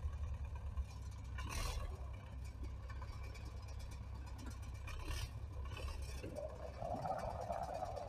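MTZ-80 tractor's four-cylinder diesel running with a low, steady rumble as it creeps forward and raises a round hay bale on its front loader. Two brief bursts of rushing noise come about one and a half and five seconds in, and a higher, rougher sound joins near the end.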